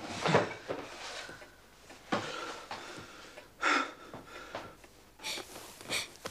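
Quiet crying: a few separate sniffs and sobbing breaths, about a second or two apart, one of them briefly voiced.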